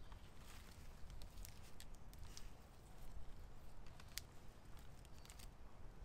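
Faint creaks and scattered small clicks of a green withy rope being twisted, wrapped and pulled tight around the lashed apex of a wooden pole frame.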